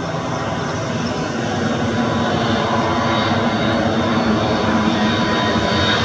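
Tupolev Tu-204-100 airliner's PS-90A turbofan engines on final approach, gear down. There is a steady jet whine over a rumble, slowly growing louder as the plane nears.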